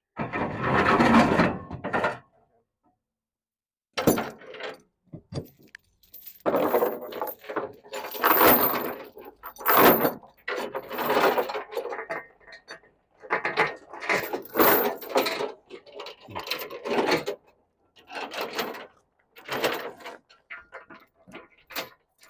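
Steel tie-down chain and trailer hardware clanking and rattling in irregular bursts as the chain is fed through an anchor pocket and hooked. A loud clatter comes at the start, then a pause of about two seconds, then many short rattles.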